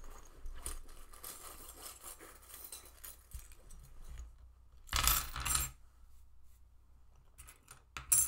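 Small metal charms jingling and clinking as they are handled, then a louder clatter about five seconds in as they spill out together, with a few sharp clinks near the end.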